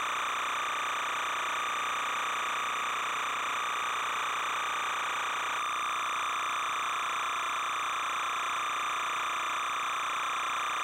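Steady hiss with a constant high-pitched hum and no distinct events: the background noise of a silent 8mm home-movie transfer rather than any sound from the scene. The tone shifts slightly about halfway through.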